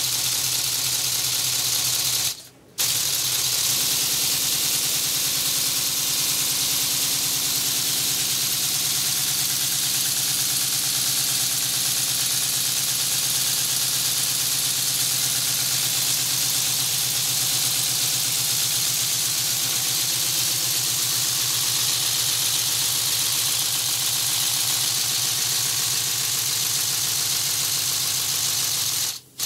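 Lego pneumatic inline-12 scotch-yoke engine running: a steady hiss of compressed air venting through its valves over a fast, even clatter of plastic pistons and cranks. The sound cuts out briefly about two and a half seconds in and again near the end.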